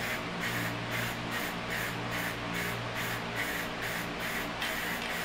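Aerosol spray-paint can fired through a pistol-grip spray handle in a quick series of short hissing puffs, two or three a second, misting paint onto a wooden lure.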